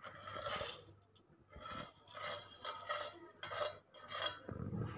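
A spoon clinking and scraping against bowls in a few short, irregular soft touches as sugar is spooned onto yogurt.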